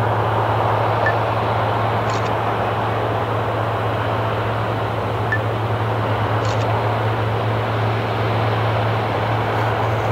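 Steady engine noise on an airport flightline as a Boeing 787 is towed past: a constant low hum under an even rushing noise.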